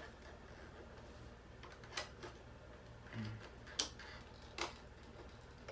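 A few sharp clicks and scrapes of a flathead screwdriver prying at a 9-volt battery in an alarm clock's plastic housing, over a faint low hum. The battery is held fast and does not come free.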